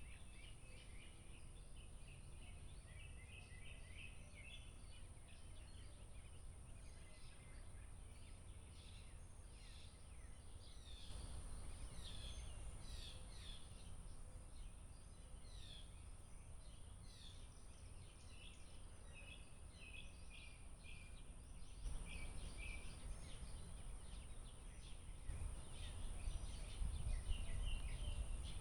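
Many small birds chirping and calling in quick, overlapping short notes, over a low steady rumble that grows louder near the end.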